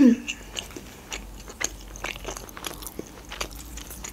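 Close-miked chewing of pizza: wet mouth clicks and small crunches scattered throughout. A brief loud burst comes right at the start.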